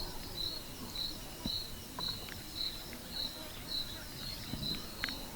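An insect chirping a short high note over and over, about twice a second, against quiet outdoor ambience with a few faint clicks.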